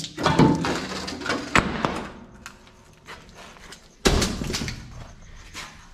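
Heavy steel parts of a cut-open A/C compressor clanking as the loose motor winding assembly is lifted off the shell on a steel table, with a heavy metal thud about four seconds in.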